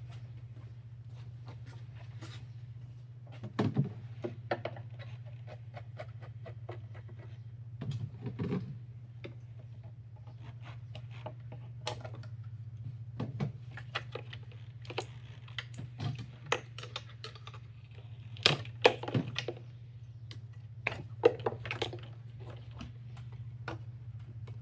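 Hand work on a car's plastic air intake duct and its clamps: scattered clicks, knocks and plastic rattles as the duct is loosened and pulled free, the loudest knocks about 4 s, 8 s, 19 s and 21 s in. A steady low hum runs underneath.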